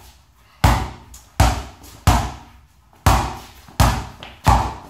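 A basketball being dribbled on a concrete floor: six bounces, about one every three-quarters of a second with one slightly longer gap, each with a short echo.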